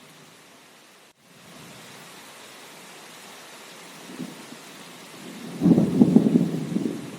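Steady rain hiss, cutting out for an instant about a second in, then a loud rumble of thunder that swells a little past the middle and slowly fades.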